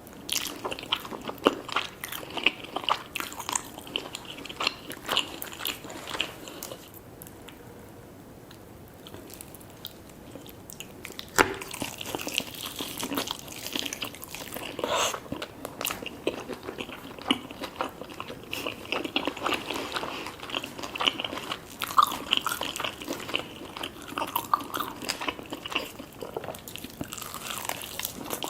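Close-miked eating: crunchy bites and chewing of crispy fried chicken and fries, with irregular crackles. There is a brief lull a third of the way in before the crunching resumes.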